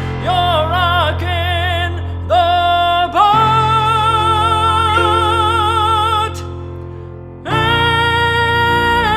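Music: a singer holds long notes with wide vibrato over a steady accompaniment. About six seconds in the voice stops and the music fades, then a loud full chord comes in about a second later.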